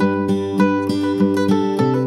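Background music: an acoustic guitar playing a steady picked pattern, moving to a new chord near the end.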